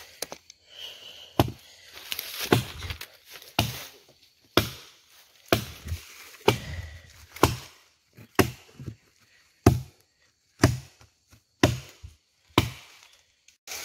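Chops of a blade into wood, struck at an even pace of about one a second, about a dozen strokes in all.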